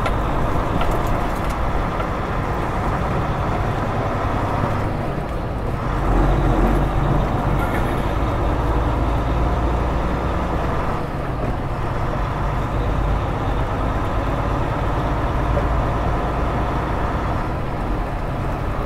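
Semi truck's diesel engine running and road noise, heard from inside the cab while driving slowly. The engine gets briefly louder about six seconds in.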